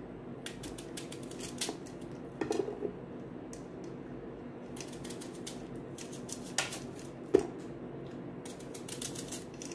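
Small knife cutting into a crisp green apple held in the hand, in short clusters of crunchy clicks and scrapes, with one sharper knock about seven seconds in.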